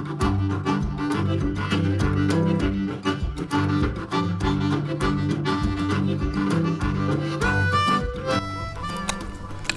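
Instrumental background music with a steady beat, a bass line and sustained melody notes.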